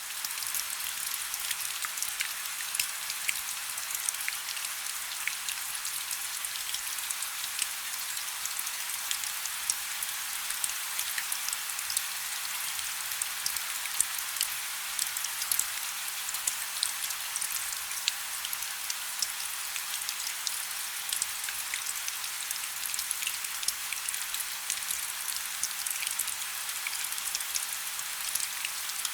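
Steady soft rain: an even hiss scattered with many small, sharp drop ticks.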